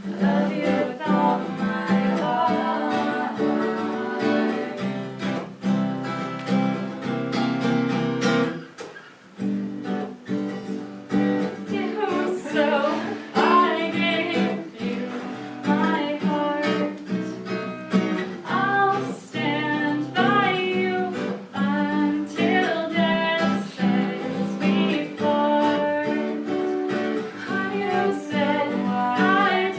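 Acoustic guitar strummed and picked, accompanying women singing a folk-pop duet; the music drops away briefly about nine seconds in, then picks back up with the voices.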